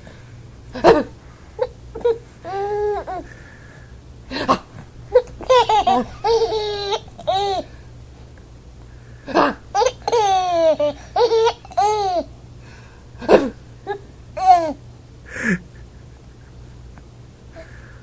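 Baby with the hiccups laughing: two longer bouts of high-pitched, rhythmic laughter in the middle, with short single hiccups scattered between them.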